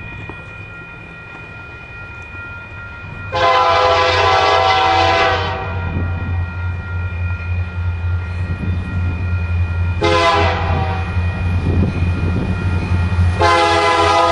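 Air horn of an approaching Union Pacific diesel freight locomotive, blowing for the grade crossing. There is one long blast about three seconds in, a shorter blast about ten seconds in, and another long blast starting near the end, all over the diesel engine's low rumble, which grows louder as the train nears.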